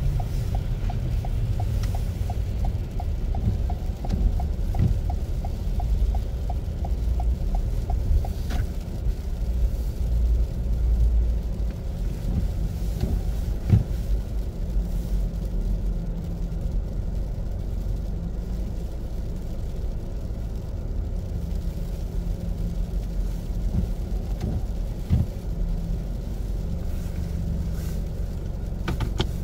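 Low rumble inside a car's cabin as it drives slowly over packed snow, engine and tyres running steadily. A turn signal ticks evenly for the first eight seconds or so, then stops.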